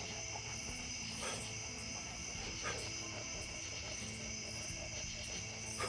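Steady night chorus of crickets and other insects: a continuous high-pitched trilling that holds level throughout.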